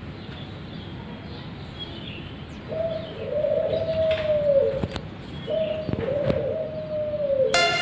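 A bird calling outdoors: two long, even-pitched calls of about two seconds each, starting a few seconds in, each dropping in pitch at the end, over a steady background hiss. Music starts right at the end.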